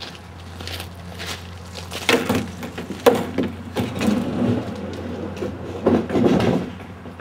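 Footsteps and knocks on a wooden deck in uneven clusters, over a steady low hum.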